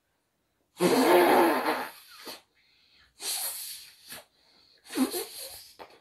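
A child blowing out hard through the nose to clear it, three forceful rushes of breath; the first is the longest and loudest.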